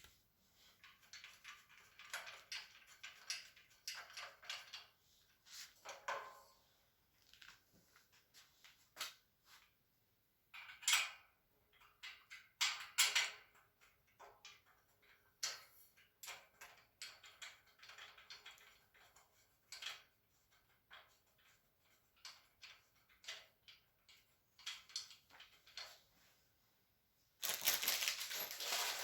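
Metal shelving parts being screwed together by hand: irregular clicks, knocks and short scrapes of metal bars and screws. A louder, steady rattling starts near the end.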